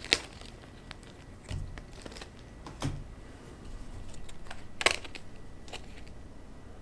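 Strain gauge packaging being handled: a few scattered light crinkles and soft knocks, the sharpest about five seconds in.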